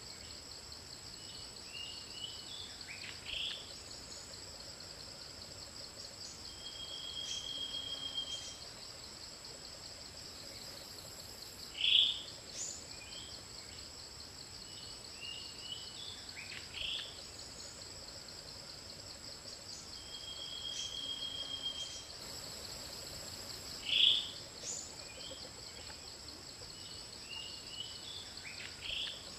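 Steady high, pulsing insect chorus with scattered chirps and calls of small birds; the loudest sounds are two sharp bird calls about twelve seconds apart.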